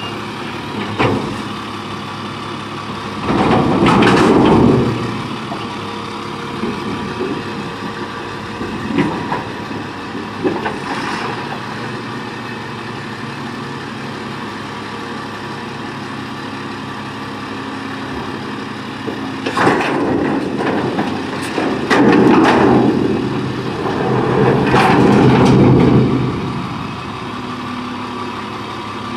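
Diesel engine of a 1999 Crane Carrier garbage truck with an Impac CSL side-loading body, running steadily and revving up under the load of the hydraulics as the automated arm and packer work. It revs once about three seconds in and again for several seconds from about twenty seconds in.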